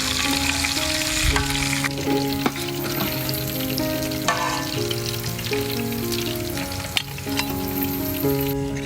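Food frying and sizzling in oil in a pan, stirred, with the scattered clicks of a utensil against the pan. Background music with held notes plays under it.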